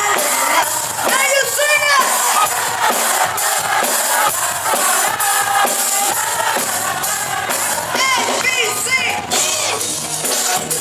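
Live band music in a club with the audience cheering and shouting over it; bursts of rising-and-falling shouts come about a second in and again near the end.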